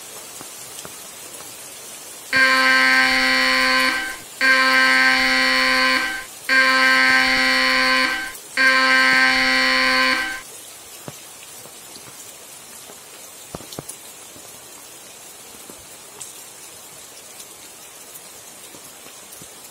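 Mobile phone emergency alert tone, signalling a Civil Defence tsunami warning: four loud, harsh blasts of about two seconds each, starting about two seconds in, each stepping up slightly in pitch at its end. Steady rain hisses underneath and carries on alone after the alert stops.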